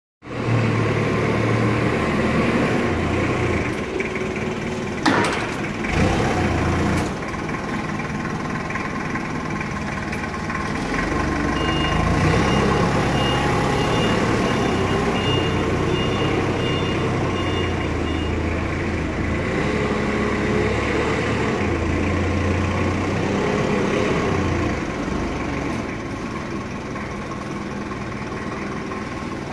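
Forklift truck running as it carries an IBC tote and sets it on a spill pallet, its engine and mast hydraulics rising and falling in pitch as it moves and lifts. Two clunks about five and six seconds in, and a reversing alarm beeping about twice a second for several seconds around the middle.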